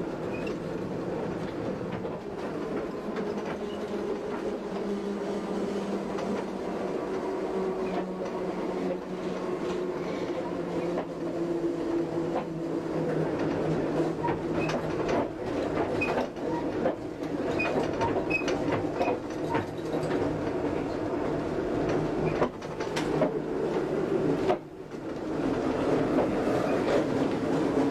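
Electric tram running on street track: a steady, slightly wavering motor hum with scattered clicks and knocks from the wheels and rails, dipping briefly near the end.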